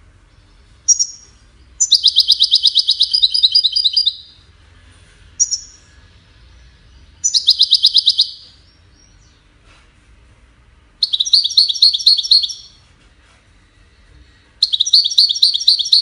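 European goldfinch singing: four bursts of rapid, high trilled notes, each lasting one to two seconds, with a short single call before the first and the second burst.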